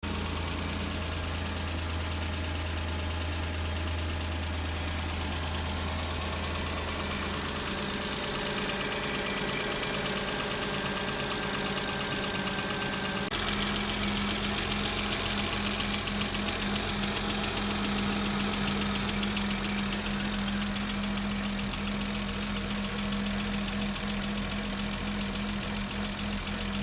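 Hyundai Santa Fe 2.7 V6 petrol engine running at idle with a steady rapid ticking knock from the cylinder head, the clatter of enlarged valve clearances. The sound shifts abruptly about halfway through.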